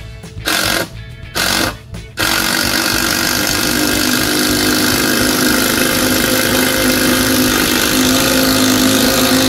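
Cordless impact driver sinking a 6-inch screw through a 4x4 porch post into the framing. It gives three short bursts in the first two seconds, then one long unbroken run of about seven seconds as the screw drives home.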